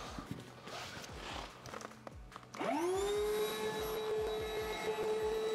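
Electric air pump starting up about two and a half seconds in, rising quickly in pitch and then running steadily as it inflates an inflatable boat tube through its valve.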